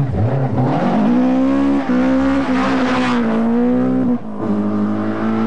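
Group B rally car engine held at high revs as the car slides through a loose gravel corner, with gravel spray hissing under it. The revs drop briefly at gear changes about two seconds in and again about four seconds in.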